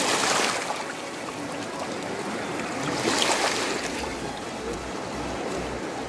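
River water rushing and lapping over rounded stones at the shallow edge: a steady rush that swells briefly at the start and again about three seconds in.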